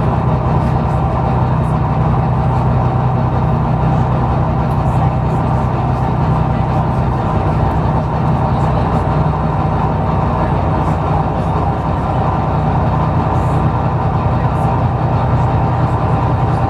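Volvo B9TL double-decker bus's six-cylinder diesel engine running steadily under way, heard from inside the passenger saloon, with road noise and light rattles from the body.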